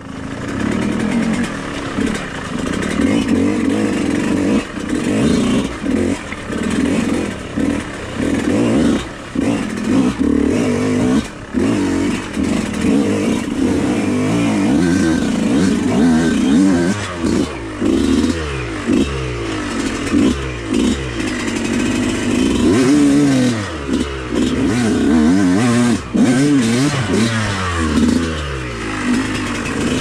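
Yamaha YZ125X two-stroke enduro dirt bike being ridden, its engine revving up and dropping back again and again as the throttle is worked, with occasional knocks.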